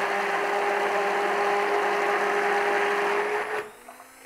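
Hand-held immersion blender motor running steadily with its blade in chocolate ganache, blending it into a smooth emulsion. The motor is switched off about three and a half seconds in and winds down briefly.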